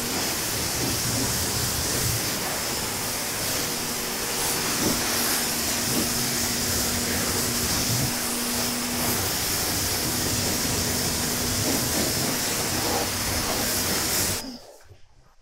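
EGO Power+ 3200 PSI battery-powered pressure washer on turbo mode, spraying through a 40-degree nozzle onto a car's paint and the floor: a steady hiss of spray over a steady hum from the washer. The sound cuts off near the end.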